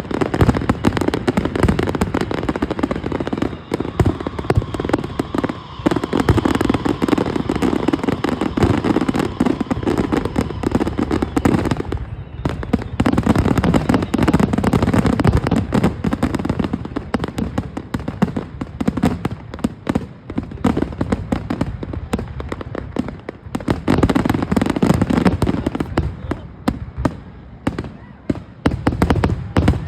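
Fireworks display: a dense, continuous run of bangs and crackling shells, with a brief lull about twelve seconds in.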